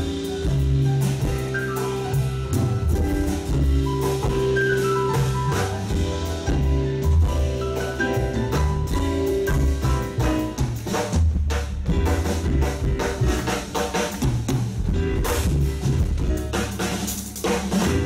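Live jazz band playing an instrumental passage: drum kit with cymbals, upright bass and keyboard, with sustained notes over a steady drum pattern.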